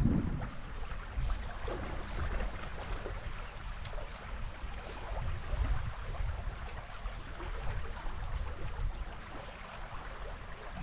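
Shallow river water running over gravel, with wind rumbling on the microphone. From about a second in to about six seconds, a fast, high ticking from a fishing reel being worked while a fish is played on a bent rod.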